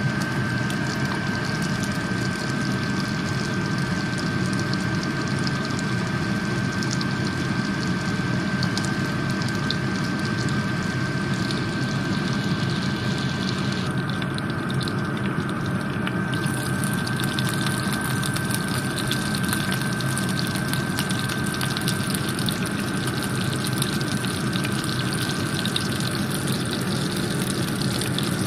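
Butter sizzling in a non-stick frying pan with sliced garlic and chopped chillies frying in it: a steady hiss with many fine crackles, over a constant low hum and a thin steady high tone.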